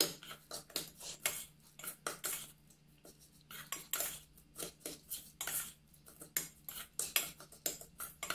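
A long stainless-steel spoon beating and scraping against a small steel bowl in quick, uneven strokes, several clinks a second. It is whipping instant coffee, sugar and a little hot water into a thick paste, the first stage of beating coffee cream by hand.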